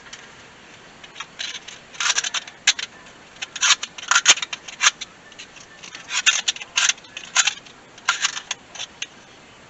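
A scraper scraping old gasket material and gunk off the water pump mounting surface of a 6.0 LS V8, in a dozen or so short strokes that come in irregular groups from about a second in.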